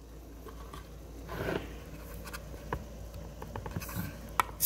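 Light kitchen handling noises: scattered small clicks and a brief rustle about one and a half seconds in, with a sharper click near the end.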